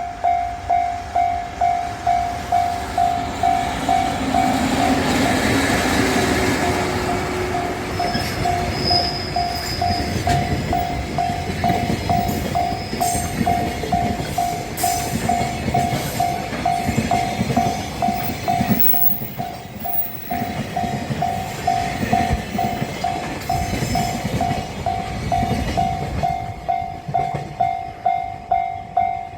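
Japanese level-crossing warning bell ringing in quick electronic dings, about two a second, while a JR freight train rolls over the crossing with a steady rumble and wheels clacking over the rail joints.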